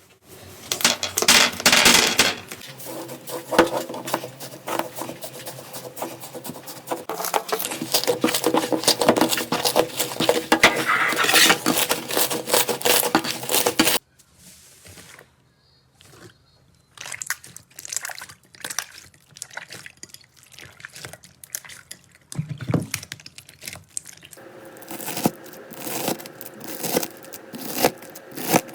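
Slime being squeezed and pressed by hand, making dense sticky crackles and popping clicks that cut off abruptly about halfway, followed by sparser clicks and pops that grow busier again near the end.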